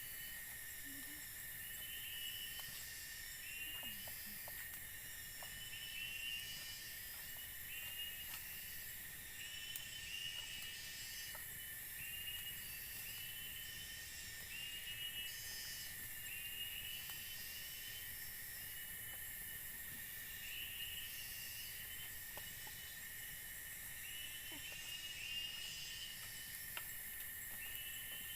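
Forest insect chorus: a steady high-pitched drone, with a short chirping call repeating about every second and a half, and a few faint ticks.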